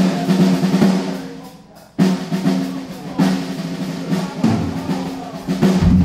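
Drum kit played live in a solo: rapid rolls on snare and toms with bass drum, broken by loud accented hits with cymbal crashes about every two seconds.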